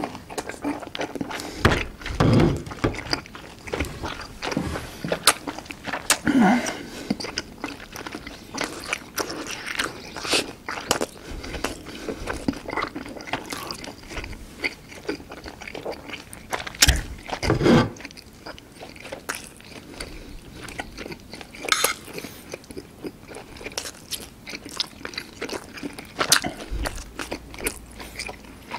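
Close-miked mouth sounds of a person eating mouthfuls of Chapagetti black-bean instant noodles: chewing with irregular wet clicks and smacks, a few louder bites scattered through.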